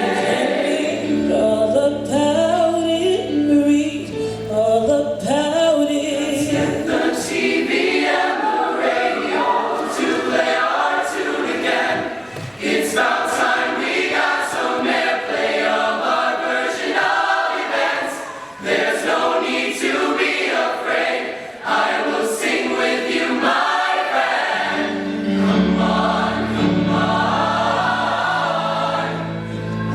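Show choir singing in harmony with live band accompaniment: a deep bass line underneath at the start and again near the end, and sharp percussive hits through the middle.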